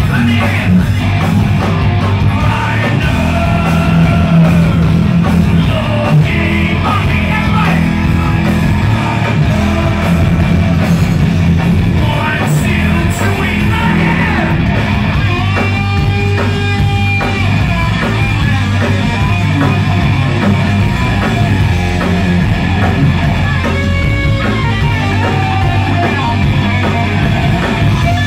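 Heavy metal band playing live: a singer's vocals over electric guitars, bass guitar and drums, loud and continuous.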